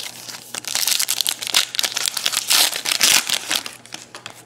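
Wrapper of a 2012-13 Panini Contenders basketball card pack being torn open and crinkled by hand, a dense crackling from about half a second in that dies away near the end.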